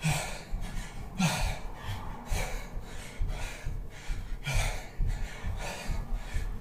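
A man breathing hard during jumping jacks, a loud breath about once a second, with dull thuds of his feet landing on a towel over carpet.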